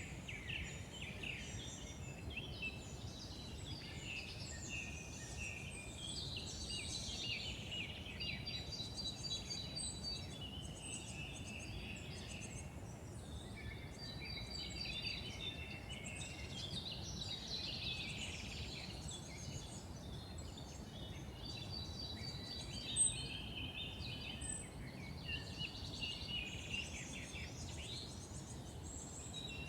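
Several songbirds singing over one another in woodland, one of them repeating a short, even, rapid trill every few seconds, over a steady low background hum. A single brief click about three-quarters of the way through.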